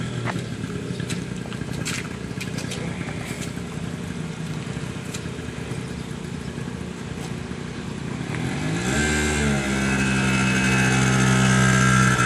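Small 50cc scooter engine idling, then revving up with a rising pitch about eight seconds in and running steadily and louder as the scooter moves off.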